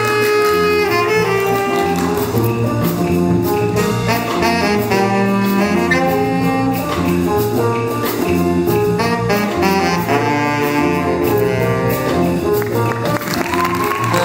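Student jazz band playing, with a saxophone solo at the microphone over the band's sustained horn chords.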